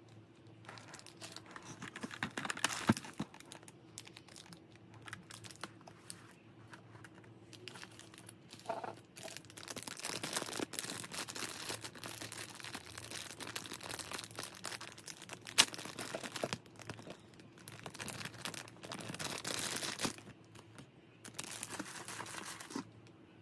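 Thin clear plastic bags crinkling and rustling as hands open them and pull out small plastic figure parts, in irregular bursts with a few sharp clicks, the loudest about two-thirds of the way through.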